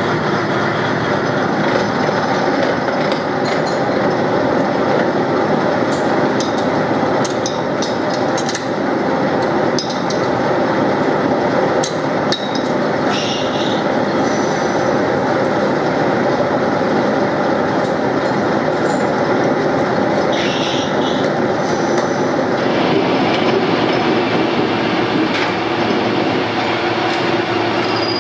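Steady machine-shop din of lathes and other metalworking machinery running, with a few light metallic clinks in the first half as steel sprocket blanks are handled on a mandrel.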